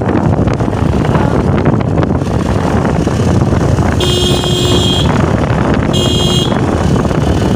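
Wind buffeting the microphone over a motorcycle running on the move, with a horn beeping twice: about a second long at four seconds in, then a shorter beep about two seconds later.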